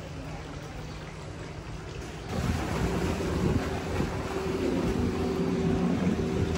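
Steady rain hiss. About two seconds in, a much louder engine comes in with a steady hum over it and stays loud.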